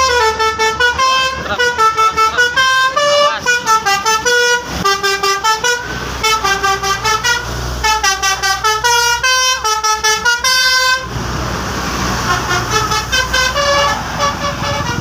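Bus's basuri 'telolet' horn, a multi-tone musical air horn, playing a quick tune of rapidly changing notes. About eleven seconds in it stops abruptly, leaving vehicle noise and a few fainter horn notes.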